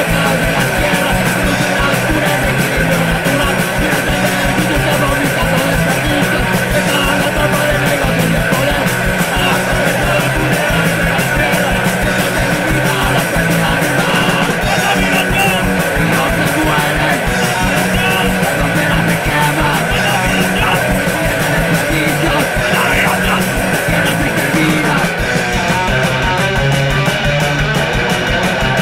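Live punk rock band playing loud and steady: electric guitars, bass and drums, with vocals.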